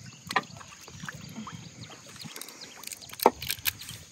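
Chess pieces clicking on a wooden board as moves are made, in sharp separate knocks, the loudest just after three seconds in. A low wash of river water runs underneath.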